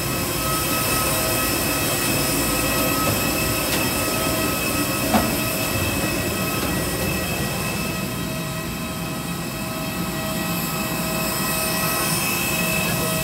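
Steady running whine and rumble of a vehicle or machine, holding several fixed high tones over a low rumble, with a single sharp knock about five seconds in.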